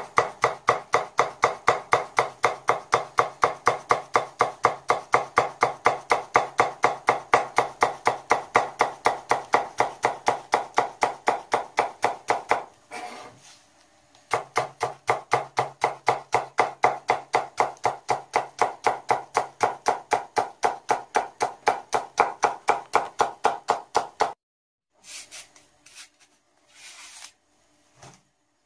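A kitchen knife rapidly slicing a leek on a plastic cutting board, an even run of chops at about four strokes a second. The chopping pauses briefly about halfway through, resumes, then stops a few seconds before the end, leaving only a few faint scattered sounds.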